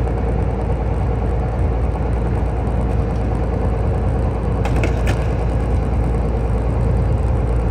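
Steady low mechanical rumble with a constant hum, like a running motor, and a couple of faint clicks about five seconds in.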